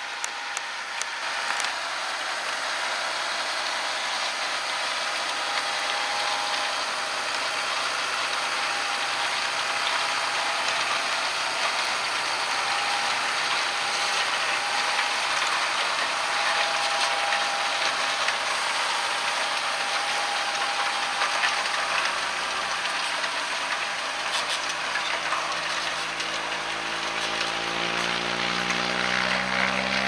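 John Deere 6250R tractor's six-cylinder diesel engine working steadily under load as it pulls a seven-furrow reversible plough through the ground. Its engine note rises over the last few seconds as it comes close.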